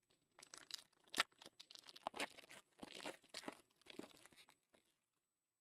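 Foil trading-card pack wrapper being torn open and crinkled by hand, in a run of irregular crackles and rustles with one sharp rip about a second in, stopping about five seconds in.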